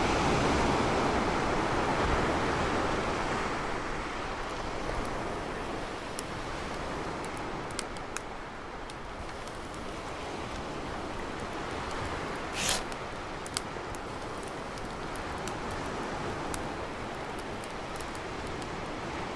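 Steady rushing ambient noise, a little louder in the first few seconds, with scattered faint clicks and crackles and a short hiss about twelve and a half seconds in.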